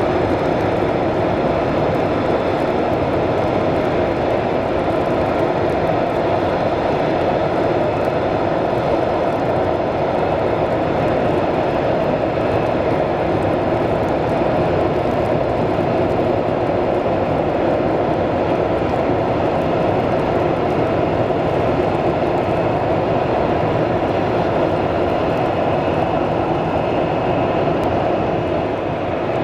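Jet engines of a Boeing 767 airliner running steadily at taxi power as it rolls slowly along a snowy taxiway: an even roar with a faint whine above it.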